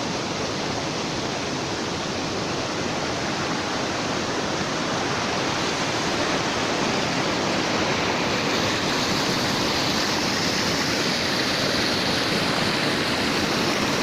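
River water rushing and splashing steadily, growing a little louder and hissier about halfway through.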